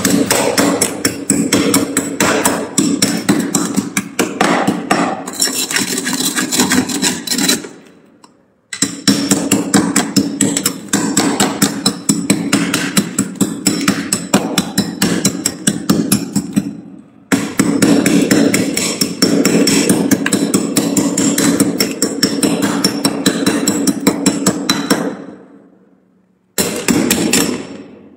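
Metal spoon scraping and chipping thick frost off a freezer's walls and shelves: fast, continuous gritty scrapes and knocks, stopping briefly three times.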